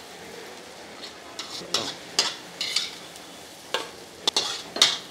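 Steel spatula scraping and stirring fried onion, green chilli, mint and whole-spice masala in a large black kadai, about eight separate scrapes over a steady faint sizzle.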